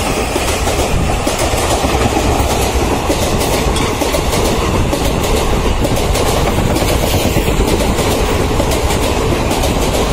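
Indian Railways express passenger train's coaches running past at speed: a loud, steady rush of wheels on rail with a constant rattling clickety-clack over the rail joints.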